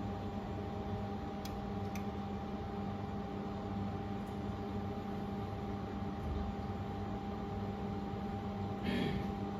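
A 200W mold laser welding machine running while it welds stainless steel pipe turning in its chuck: a steady hum with a constant mid-pitched tone. A couple of faint ticks come about one and a half and two seconds in, and a brief wavering higher sound comes near the end.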